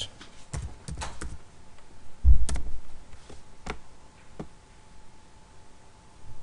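A few computer keyboard keystrokes in the first second or so, then one loud dull thump a little over two seconds in, followed by a couple of scattered clicks.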